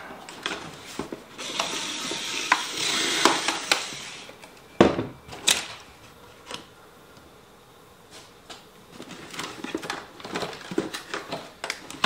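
Cardboard packaging being handled while zip ties are cut and pulled free: scraping and rustling, with a sharp knock about five seconds in and scattered clicks.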